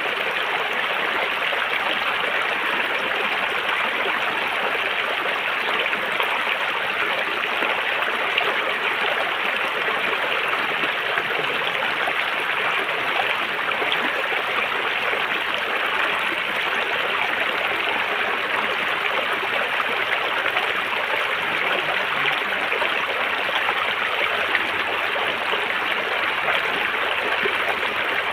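A river's water flowing and rushing steadily over rocks, an even, unbroken rush with a light gurgle.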